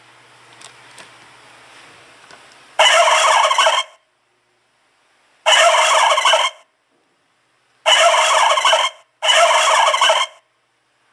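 Custom sound-effect scooter horn playing a turkey gobble sound, four bursts of about a second each that start and stop abruptly, the last two close together.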